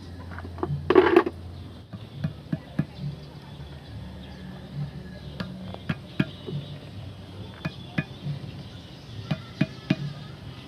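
Scattered metallic taps and clinks of hand tools on metal wheel-hub parts during a rear wheel bearing job, with a louder knock about a second in.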